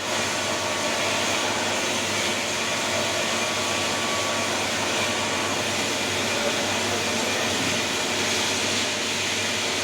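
Steady whirring hum and hiss of CNC machine-shop machinery running, with no knocks or changes.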